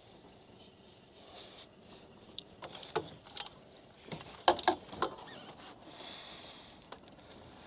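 Scattered sharp knocks and clicks in a small fishing boat, a handful of them between about two and a half and five seconds in, the loudest near the middle, over a faint steady background.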